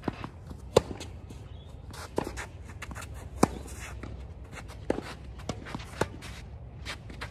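Tennis rally: a tennis ball struck back and forth with racquets, a sharp pop every second or so, the loudest near the start and halfway through. Players' footsteps scuff on the hard court between the shots.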